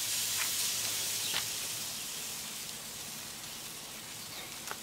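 Whole chicken sizzling on the hot cooking grate of a Weber Smokey Mountain smoker burning lump charcoal: a steady hiss that slowly fades, with a few faint ticks.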